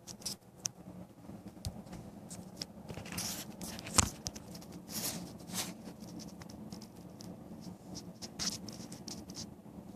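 Rustling and scratching with scattered sharp clicks, the loudest about four seconds in, from a dog being handled for a nail clipping.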